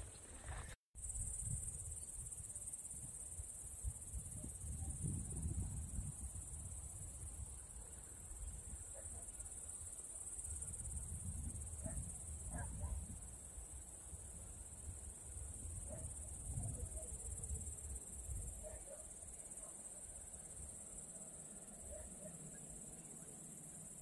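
Grasshoppers chirring in a steady, high-pitched evening chorus, over a low, uneven rumble of wind on the microphone.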